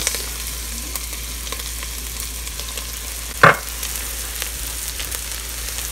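Meat, onions, carrots and celery frying in oil in a pot, a steady sizzle. One short, loud knock about three and a half seconds in.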